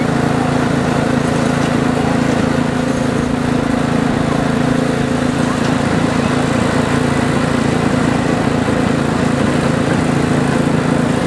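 Small engine running at a steady speed, a constant drone that does not rise or fall.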